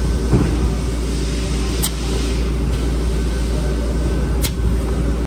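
Steady factory machinery noise with a low hum, and two short sharp clicks, one about two seconds in and one near the end.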